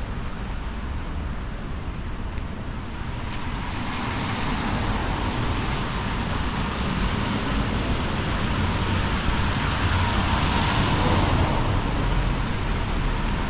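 Street traffic on wet pavement: the tyre hiss of a passing vehicle grows louder from about four seconds in, peaks near the end, then eases slightly, over a steady low rumble.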